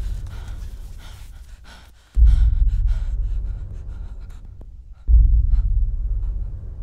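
Deep booming hits of a horror film's sound design, one starting about two seconds in and another about five seconds in, each fading slowly over a few seconds, with the tail of an earlier one at the start. Over them a person breathes hard and gasps.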